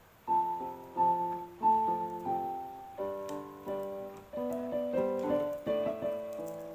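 Background piano music: a slow melody of struck notes, each fading after it is played, turning into fuller chords about halfway through.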